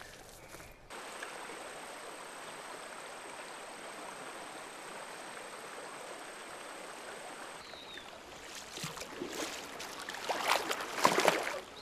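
Shallow stream running steadily over stones. In the last few seconds it gives way to irregular splashing, loudest near the end, as a child wades through muddy water.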